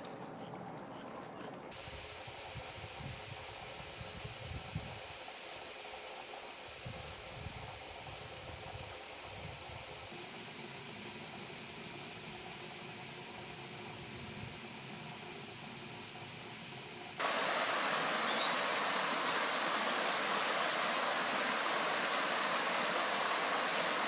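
Loud, steady, high-pitched shrilling of an insect chorus, starting abruptly about two seconds in. About seventeen seconds in it cuts to a harsher, broader hiss with a fast pulsing note on top, another insect chorus.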